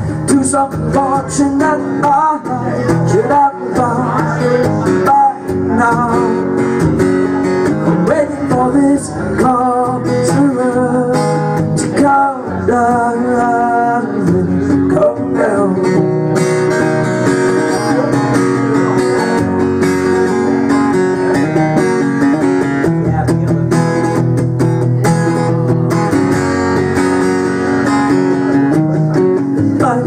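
Acoustic guitar strummed in a steady rhythm while a man sings, performed live.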